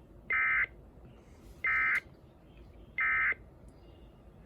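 Emergency Alert System end-of-message signal: three short bursts of SAME digital data tones, each about a third of a second long and about a second apart, marking the end of the alert broadcast.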